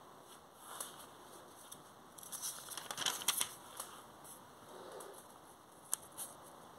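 Thin Bible paper pages being turned, giving a crisp crinkling rustle, densest from about two to four seconds in. There is a softer rustle near the start and two sharp clicks near the end.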